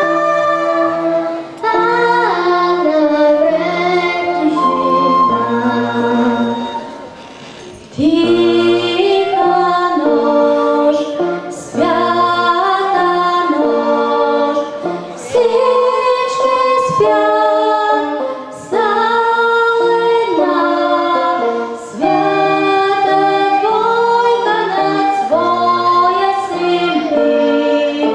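A girl and a woman singing a song into microphones, taking turns: the girl first, then the woman. Steady low accompaniment notes sit beneath the voices, and the singing breaks off briefly about seven seconds in.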